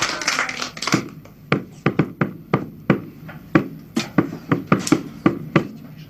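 A small drum struck with two sticks in uneven single beats, about three a second. It starts about a second in, as background music fades out.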